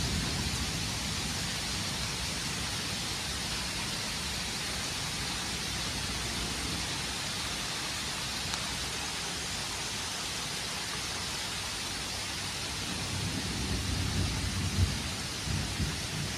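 Steady rain falling on trees and ground, a continuous hiss. A low rumble of thunder dies away in the first second or two and another low rumble comes near the end, with a single brief knock.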